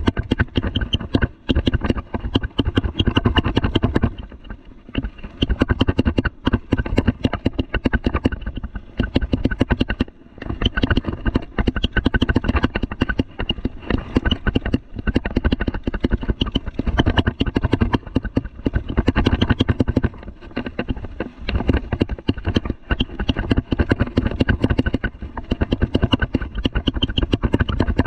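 Mountain bike clattering and rattling as it rides fast over a rough dirt trail, tyres on dirt under a dense run of knocks and rattles. The clatter eases for a couple of seconds about four seconds in and again briefly around ten seconds.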